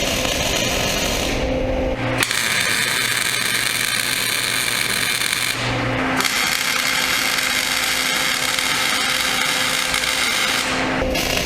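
Welding arc crackling steadily as a bead is laid on the plow's broken steel. It breaks off briefly about two seconds in, again about six seconds in and near the end, as the arc stops and restarts. A steady hum runs underneath.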